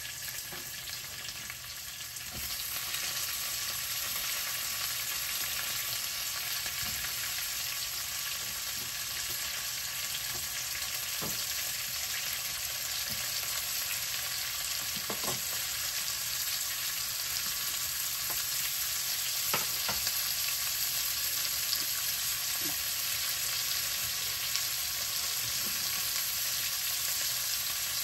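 Onions frying in hot oil with whole spices: a steady sizzle that grows louder about two seconds in, with a few light knocks of the spoon stirring the pan.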